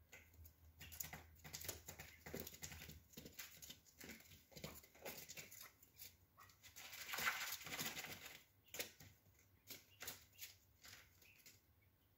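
Quails pecking and scratching on the newspaper floor of their enclosure: a string of short, sharp taps and rustles, with a longer, louder burst of rustling about seven seconds in.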